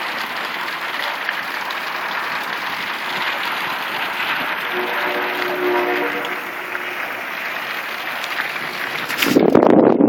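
Steady hissing water noise of a city flood, with a held tone of several notes about five seconds in. A louder, rough rumbling noise starts near the end.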